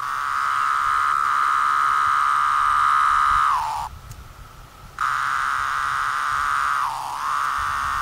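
17-year periodical cicada (Brood V) calling: a steady, high, buzzing song held for about three and a half seconds that slides down in pitch and stops. After about a second's pause it starts again, dipping briefly in pitch twice near the end.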